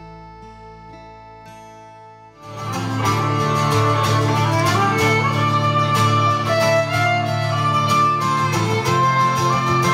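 Quiet held notes at first, then about two and a half seconds in an acoustic guitar and a fiddle come in loud, playing a tune together as a live duo.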